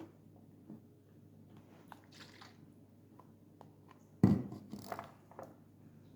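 Quiet handling noise: a few small clicks and faint rustles, then one sharp knock about four seconds in, followed by a couple of softer knocks.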